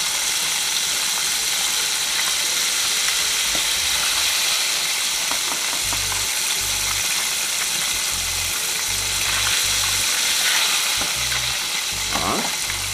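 Chicken pieces frying in a pot of hot oil: a steady, even sizzle. Dull low bumps come and go under it in the second half.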